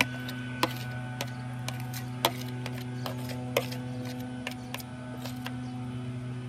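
Steady engine hum of a grass-cutting machine, with irregular sharp clicks over it.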